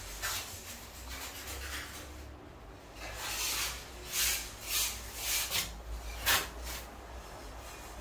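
Large porcelain wall tile being pressed and worked against the wall as it is set, giving a run of short rubbing, scraping strokes in the second half.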